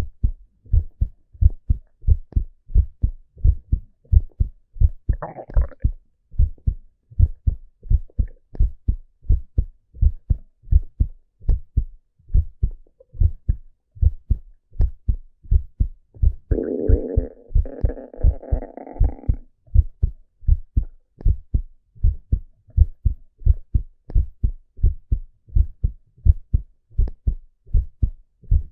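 A man's heartbeat picked up on his chest: steady, evenly repeating low thumps. A short rush of breath comes about five seconds in, and a longer breath from about 16 to 19 seconds.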